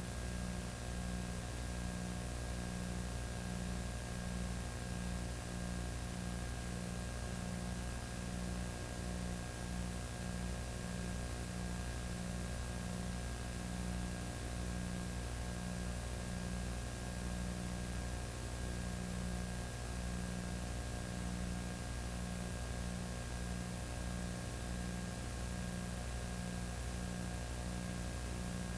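Steady electrical hum and hiss, with a low part of the hum pulsing on and off at an even pace; nothing else is heard. This is the noise floor of a recording that carries no real audio.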